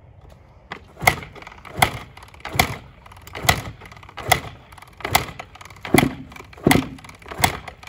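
Honda CR125 two-stroke dirt bike being kick-started, about nine kicks at roughly one every 0.8 seconds. Each is a sharp clunk of the kickstart as the engine turns over without firing, because the fuel tap was left off.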